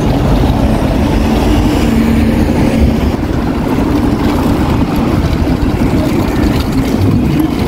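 Steady wind noise buffeting the microphone while riding a bicycle along a paved street, with a faint low hum underneath.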